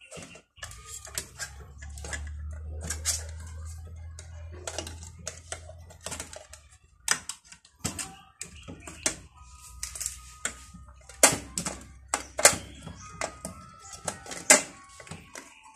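Plastic and metal parts of an opened DNP DS-RX1 photo printer clicking and knocking as hands pry at its black plastic cover: a string of sharp irregular clicks and taps. A low hum runs through the first half.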